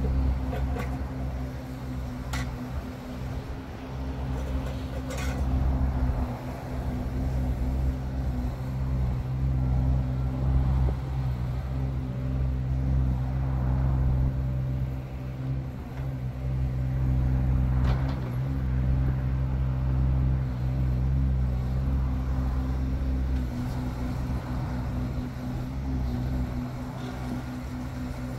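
Yanmar three-cylinder diesel engine of a compact hydraulic excavator running steadily as the machine swings and works its boom, its level rising and falling a little, with a few short sharp knocks along the way.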